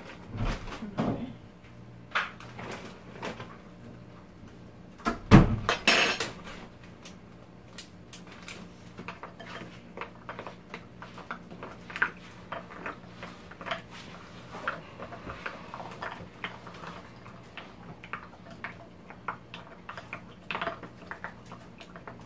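Eating sounds at a meal of noodles and rice: utensils clicking and clinking against bowls, many small knocks spread through, with a louder, longer burst about five seconds in. A faint steady hum lies underneath.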